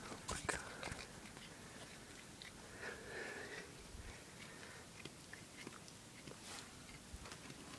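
Cat chewing on a string: faint, irregular clicks of its teeth gnawing, with a louder cluster of bites about half a second in.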